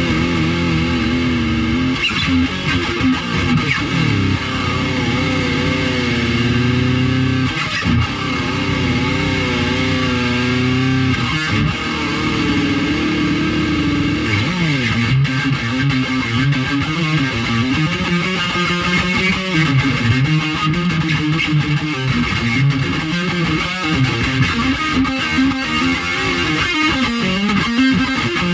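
Electric guitar playing a meandering riff, with held notes that waver and bend in pitch.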